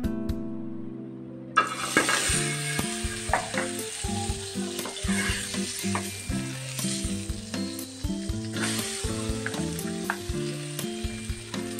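Butter frying with a hissing sizzle in a hot wok, starting suddenly about a second and a half in. By the end, chopped garlic and ginger are frying in it, with a few light clicks of a spoon against the pan.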